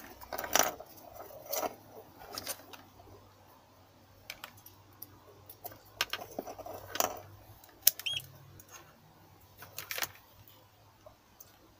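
Scattered light clicks and rustles of hands handling a circuit board, a USB charging cable and multimeter test leads on a workbench, unevenly spaced.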